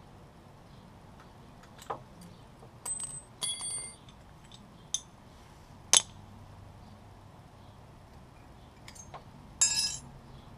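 Scattered metal clinks from a motorcycle front brake caliper being handled: hard parts tapping against each other, two of them ringing briefly like a small bell, about three and a half seconds in and near the end, and the sharpest click about six seconds in.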